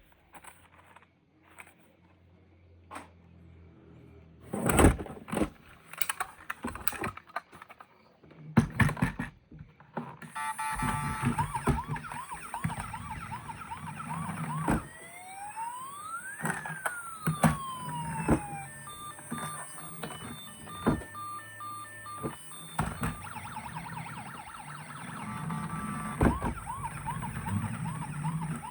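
Scattered clicks and knocks for about ten seconds, then a battery-powered toy emergency vehicle's electronic siren. The siren cycles through a fast warble, a rising and falling wail and a run of pulsed beeps, and the warble returns near the end.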